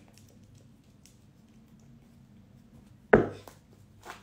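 One sharp knock about three seconds in, then a light click near the end, as a tarot deck is handled and knocked against a hard surface.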